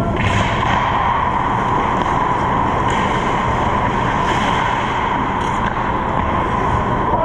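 Steady noise of an indoor ice rink with players skating, and a few faint knocks from sticks and pucks.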